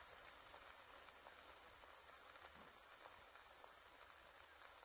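Near silence: a faint steady hiss with a few very faint ticks.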